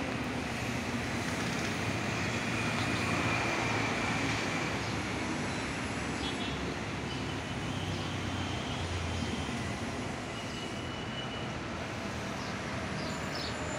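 Road traffic: a steady hum of motorcycles and cars passing on a wide multi-lane road.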